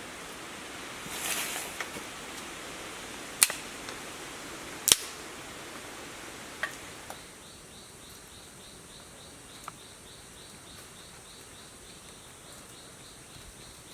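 Sharp knocks of wood being worked at camp: two loud ones about a second and a half apart, then a few fainter ones. From about halfway, an insect chirps in quick, even pulses, about three a second.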